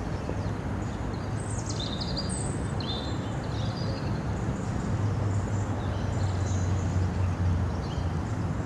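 Small birds chirping and twittering, most busily in the first few seconds, over a steady low hum that gets louder about five seconds in.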